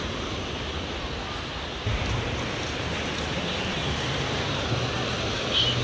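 Surf breaking and washing up on a sandy beach, a steady rushing noise mixed with wind buffeting the microphone; it gets louder about two seconds in.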